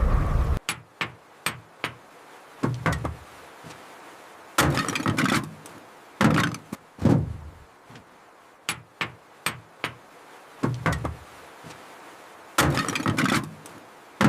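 Stone knocking against stone: a scatter of sharp clicks and knocks, with three heavier, longer thuds a few seconds apart.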